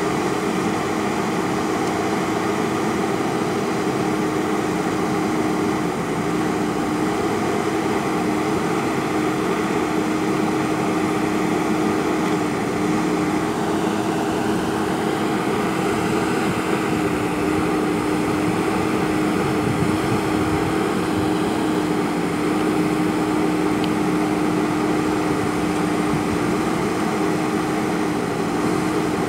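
JCB backhoe loader's diesel engine running steadily at an even speed, a constant drone with a strong steady hum.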